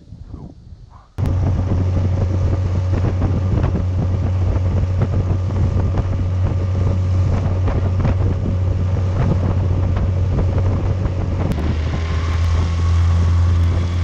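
Outboard motor pushing a jon boat along at steady speed, with wind buffeting the microphone. It cuts in abruptly about a second in, and its note shifts slightly lower and fuller near the end.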